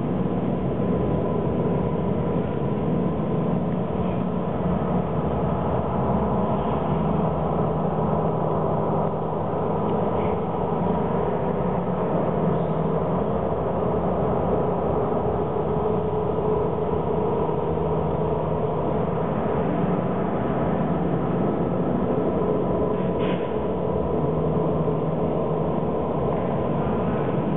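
Steady low drone with several held tones and a continuous rumble, the looping soundtrack of a video art installation.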